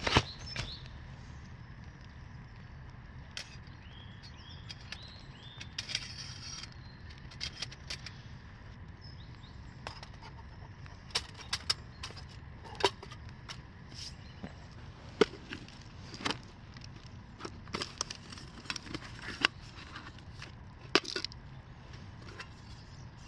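Scattered light metal clinks and clicks as a folding steel hobo stove is handled and a brass spirit burner, windscreen and cook pot are set in place, with some rustling of leaves, over a faint steady hiss.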